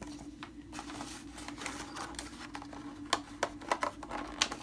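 Clear plastic blister pack being handled and prised open by hand: a run of sharp clicks and crackles from the flexing plastic, thickest from about three seconds in.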